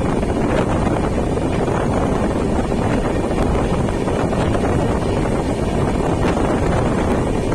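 Steady rushing wind on the microphone over the low rumble of a passenger train's wheels running on the rails at speed, heard from outside the side of a moving coach.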